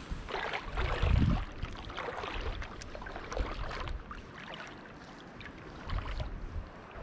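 Close clicks and rustles of a spinning rod and reel being handled, over a steady wash of stream water, with a couple of dull low knocks.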